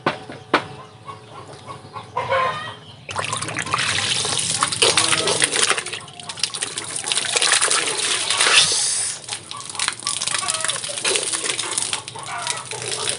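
Water jet from a 12-volt DC submersible hydroponic pump splashing and pattering down into a bucket of water. The rush of splashing starts suddenly about three seconds in and carries on steadily.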